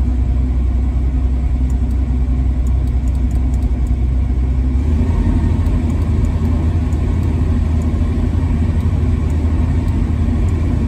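Excavator's diesel engine running with its hydraulics working the bucket and thumb through their travel; the engine's sound grows heavier about five seconds in.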